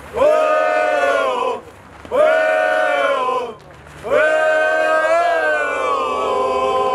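Group of male football supporters chanting in unison: three long drawn-out shouted calls, each held and then falling off at the end, the last one the longest.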